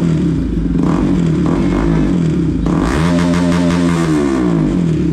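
Bajaj Pulsar NS single-cylinder motorcycle engine idling through a newly fitted Akrapovic aftermarket exhaust, run without its dB killer. A couple of light throttle blips, then a longer rev about three seconds in that climbs, holds and drops back to idle.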